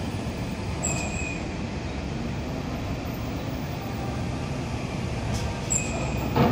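Heavily loaded truck rolling down a ship's steel loading ramp: a steady low engine and rumble, with a short high squeal about a second in and again near the end, and a sharp bang at the very end.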